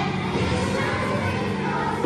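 Children's choir singing with upright piano accompaniment, holding sustained notes at an even level.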